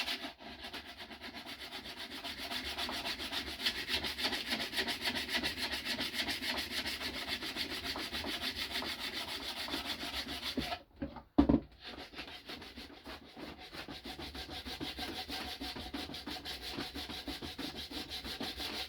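Sandpaper sanding a wooden piece, rasping steadily over wood and wood filler. It breaks off briefly with a sharp knock about eleven seconds in, then carries on.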